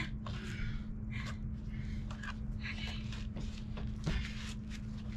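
Short breaths, scuffs and knocks as two people heave a heavy wooden crate over a doorway sill, over a steady low hum.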